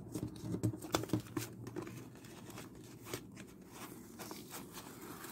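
Washi tape being peeled off a clear plastic card holder (toploader), with irregular crinkly crackles and small plastic clicks.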